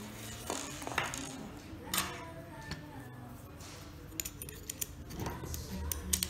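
Hard plastic clicks and rattles as a JetPrime ACC50 handlebar switch housing and its cables are handled and its halves fitted together. A few single clicks come early, then a quick run of sharp ticks in the last couple of seconds.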